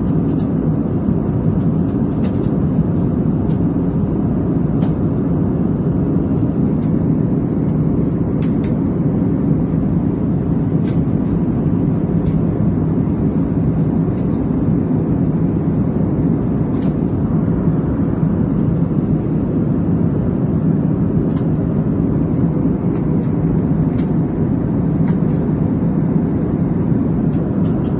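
Steady low drone of an Airbus airliner's cabin in flight: jet engines and airflow heard from a window seat, with a few faint clicks.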